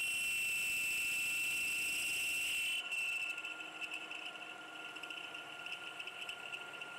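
High-pitched friction squeal of a high-speed-steel tool rubbing on a stainless steel tube spinning in a lathe, as the tube end is rolled out to a larger diameter. The squeal holds one steady pitch, and about three seconds in it turns quieter and rougher, warbling.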